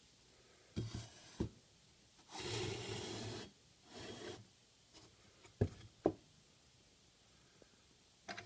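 Hardened steel vise parts being handled into a heat-treat oven: a few sharp knocks as they are set down on the firebrick floor, and a scraping slide of about a second, then a shorter one, as they are pushed into place.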